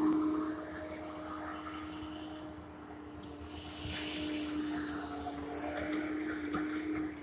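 Bobcat skid-steer loader's engine running steadily, a constant hum that dips slightly in the middle.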